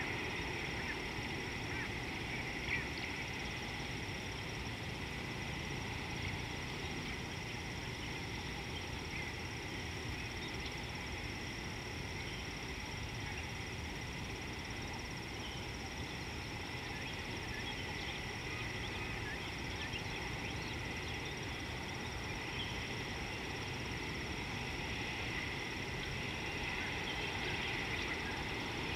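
Steady natural outdoor ambience: a continuous high-pitched hum with scattered faint chirps over low background noise.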